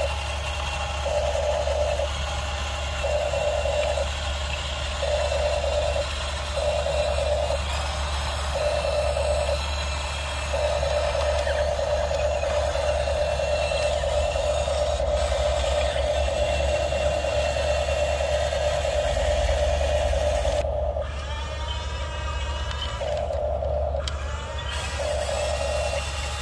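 Small electric motors of toy RC excavators whirring in short on-off bursts about once a second as the models are driven, then running steadily for about ten seconds in the middle, over a steady low hum.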